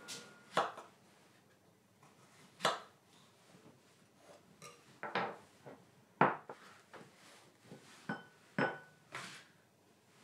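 Sharp knocks and taps on a wooden cutting board, about seven of them, spread a second or two apart, as strawberries are cut with a kitchen knife and gathered up with a plastic scraper. Two knocks near the end ring briefly.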